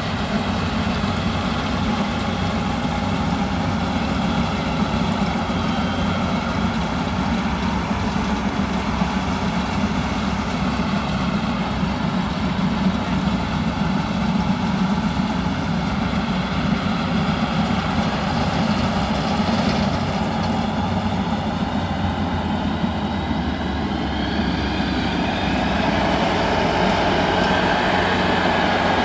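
Yanmar YH850 rice combine harvester's diesel engine running steadily, growing louder and brighter in the last few seconds.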